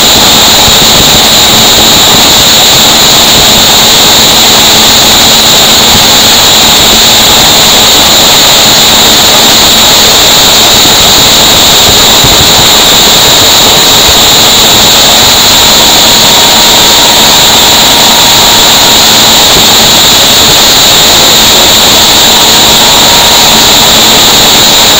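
Conveyor drive machinery with a MagnaDrive magnetic coupling running at speed: a loud, steady, unchanging machine noise with a steady low hum.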